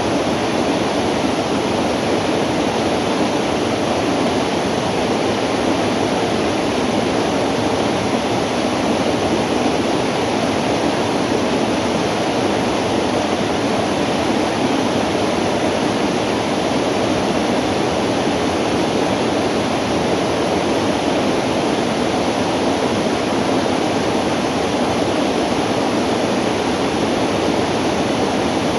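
Steady rush of river water flowing over shallow riffles, an even, unbroken noise.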